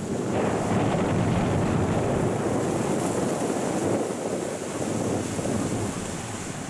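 Sea surf breaking and washing around rocks, a continuous rushing that swells over the first few seconds and eases slightly toward the end, with wind buffeting the microphone.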